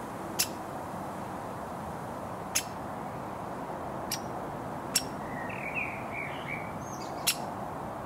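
Woodpecker giving single, very short, sharp calls, five in all spaced a second or two apart, with a brief run of softer chirps between the fourth and fifth.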